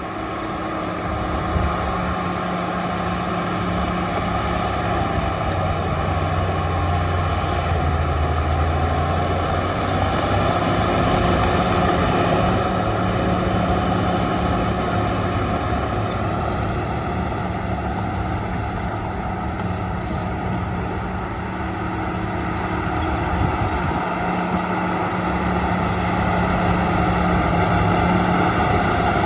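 Shantui DH17 bulldozer's diesel engine running steadily, its low note shifting a few times.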